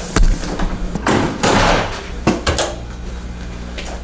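Hotel room door being handled: a heavy thump just after the start, a stretch of rustling noise around a second in, and a few sharp clicks.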